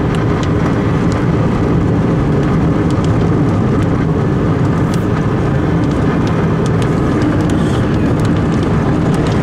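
Car driving at speed: steady engine and road noise heard from inside the cabin.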